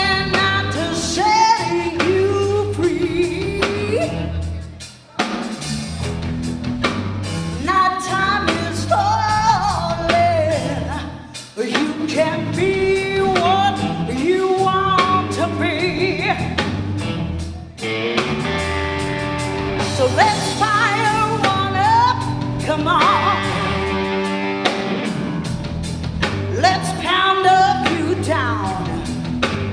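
Live blues band: a woman sings lead over electric guitar, bass guitar and a drum kit. The band drops out briefly three times, at about five, eleven and eighteen seconds in.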